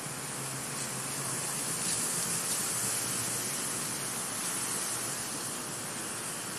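Steady, even hiss, brightest in the high range, with no distinct events standing out.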